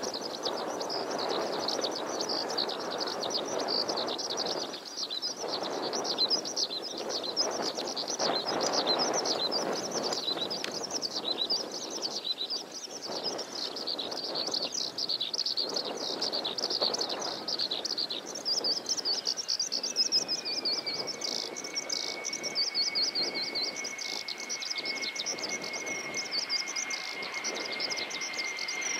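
Small birds chirping and singing continuously over the rushing noise of an F-2 fighter's jet engine as it comes in and lands. About eighteen seconds in, a whine drops in pitch and then holds steady.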